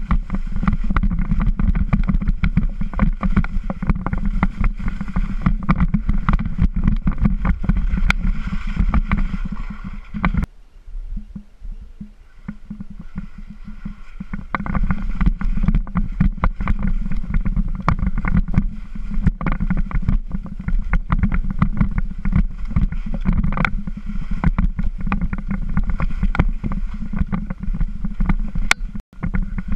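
Skis scraping and chattering over firm, crusty snow on a fast downhill run, with heavy wind buffeting on the camera's microphone. The noise eases for a few seconds about ten seconds in, then picks up again.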